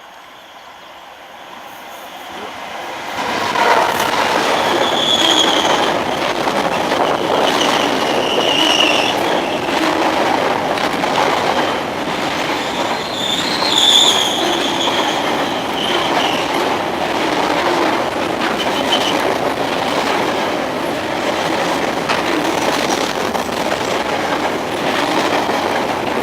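Freight train of waste container wagons hauled by a DB Cargo Class 66 diesel locomotive passing. It builds up over the first three seconds, then the wagons rumble steadily past with short high wheel squeals several times.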